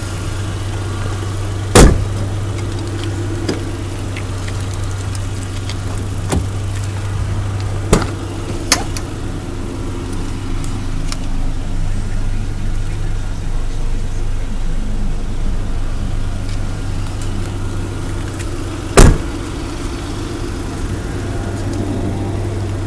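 Isuzu Rodeo engine idling with a steady low hum. Two loud thuds of car doors being shut, about two seconds in and near the end, with a few lighter clicks and knocks in between.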